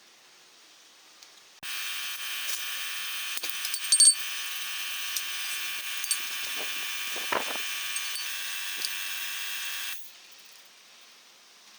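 A small electric power tool runs steadily for about eight seconds, starting and stopping abruptly, with a few sharp clicks over it, the loudest about four seconds in.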